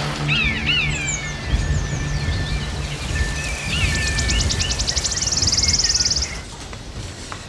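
Birds chirping and calling in short rising-and-falling notes. A fast, high trill starts about four seconds in and stops abruptly a little after six seconds. A low, steady outdoor rumble lies underneath.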